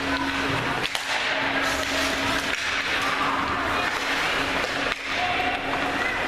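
Ice hockey being played: skates scraping the ice with a few sharp knocks of sticks and puck, over a steady hum and a murmur of voices in the rink.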